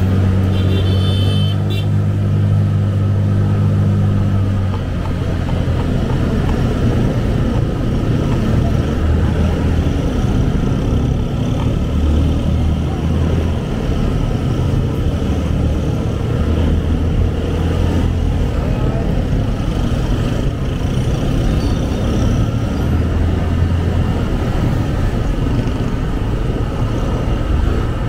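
Engine and road noise of a road vehicle on the move: a steady low drone that turns into a rougher, shifting rumble about five seconds in. A brief high tone sounds about a second in.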